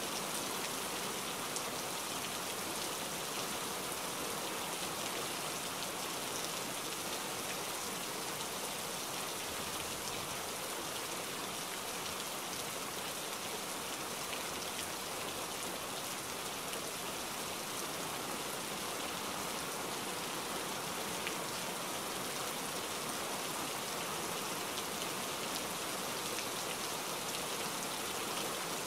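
Steady, even rain-like hiss that does not change at all over the whole stretch.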